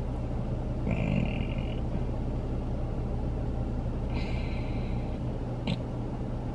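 Steady low rumble of a car heard from inside the cabin, with two brief faint higher tones about one and four seconds in and a short click near the end.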